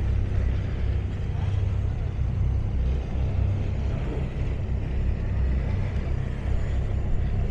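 Steady low rumble of a tugboat's diesel engine pushing a ferry barge.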